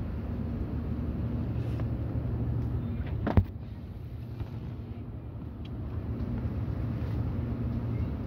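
Steady low hum of supermarket background noise, with a single sharp knock about three and a half seconds in.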